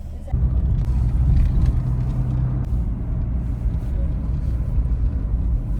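A motor vehicle running along the road: a steady low engine and road rumble that comes in abruptly about a third of a second in.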